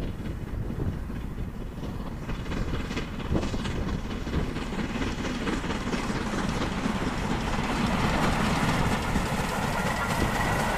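Two LMS Black Five 4-6-0 steam locomotives double-heading a passenger train, the rumble of the engines and coaches growing steadily louder as the train approaches.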